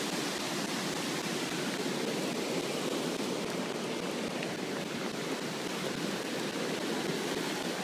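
Steady rush of floodwater running across a flooded street, with rain falling.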